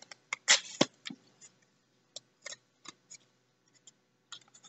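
Blue painter's tape being pulled off its roll and torn, a short rip about half a second in, followed by scattered small clicks and taps of the tape and cardboard being handled.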